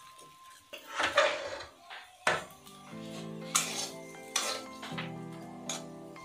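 A metal utensil scraping and knocking against a kadai as the cooked potato filling is scooped out of the pan, in a few separate scrapes and clinks. Background music comes in about three seconds in.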